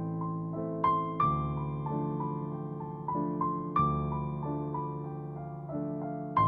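Background music: a gentle piano piece, with struck notes that ring out and fade, and louder chords or accented notes about a second in, near four seconds and near the end.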